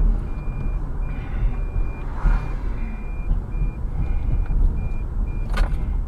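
Low rumble of a car driving, heard from inside, with a high electronic beep repeating about twice a second. There is a single sharp knock near the end.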